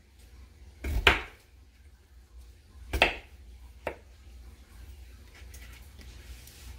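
Kitchen knife chopping potatoes on a plastic cutting board: three sharp knocks of the blade hitting the board, about a second in, at three seconds and just before four seconds.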